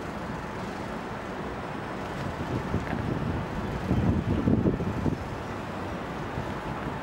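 Wind buffeting the microphone over a steady hum of distant city traffic, with a stronger gust about four seconds in.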